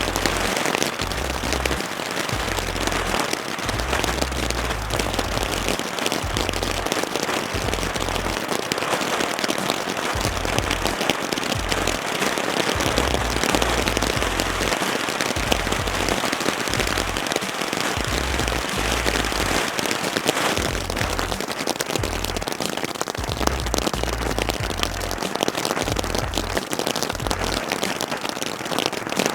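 Glowing Lotus XL ground fountain firework burning, a continuous spray of sparks hissing with dense fine crackling.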